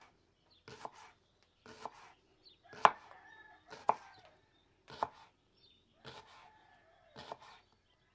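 A kitchen knife slicing a white onion into thin rings on a wooden cutting board, the blade knocking on the board about once a second.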